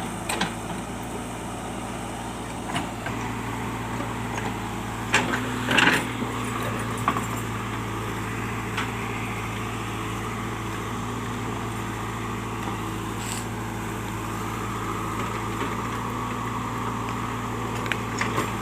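JCB's diesel engine running steadily, with a few sharp knocks, the loudest about six seconds in.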